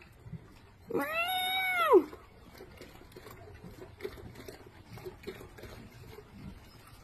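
A peacock gives one loud, cat-like wailing call about a second in, rising and then falling in pitch and lasting about a second.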